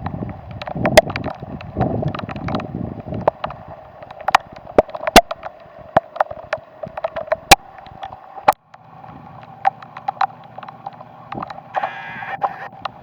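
Storm wind buffeting the microphone in low gusts, with rain pattering as many scattered sharp ticks over a steady rushing noise. About two-thirds through, the sound cuts abruptly to a steadier low hum under the same ticks.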